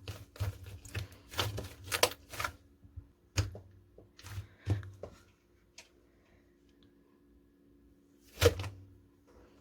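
Slime being squished and pressed by hand, giving irregular sticky clicks and pops that come thick at first, pause for a couple of seconds, then one louder squelch near the end.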